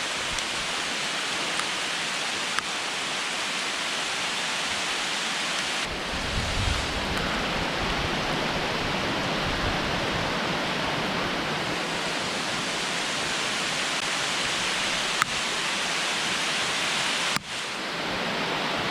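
Steady hiss of heavy rain falling, mixed with rushing stream water. A brief low rumble about six seconds in.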